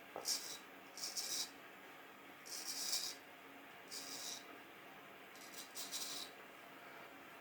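Vintage W.J. Guy straight razor scraping through lathered beard stubble in short strokes, about five strokes spaced a second or so apart, each a brief crisp rasp.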